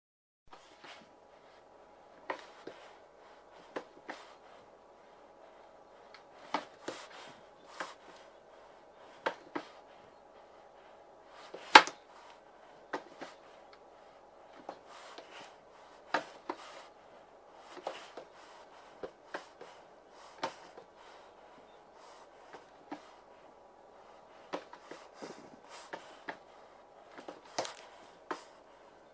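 Handheld camera handling noise: scattered light knocks and clicks, with one louder knock about 12 seconds in, over a faint steady hum.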